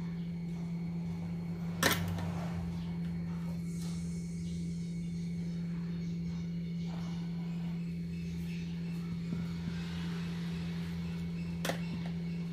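A metal pot lid knocks sharply twice, about two seconds in and again near the end, as hands press it tight onto the pot's dough-sealed rim. Under it runs a steady low hum.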